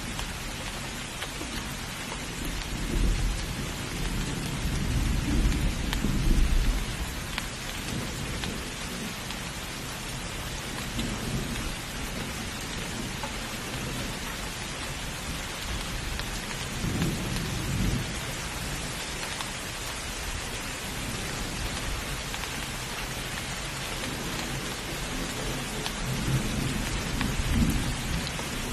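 Heavy, steady rain hissing, with rolls of thunder rumbling low: a long swell about three to seven seconds in, another near the middle, and a third near the end.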